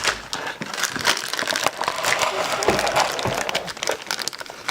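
Plastic and cardboard packaging being handled and pulled open, a dense, irregular crackling and crinkling.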